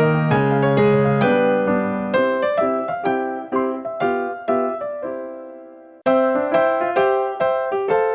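Background piano music. A phrase dies away about five seconds in, and the piece starts up again suddenly a second later.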